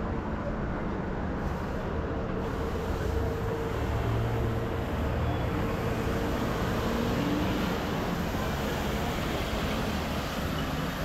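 City street traffic: a steady rumble of passing vehicles, with one vehicle's steady hum standing out through the middle of it.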